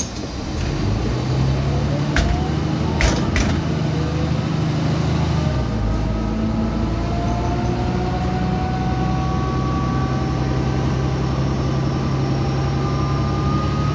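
Mercedes-Benz O405GN articulated bus running under way, its engine humming steadily while a whine rises slowly in pitch as it gathers speed. The engine note steps down about five and a half seconds in, like a gear change. A few sharp clicks come between two and four seconds in.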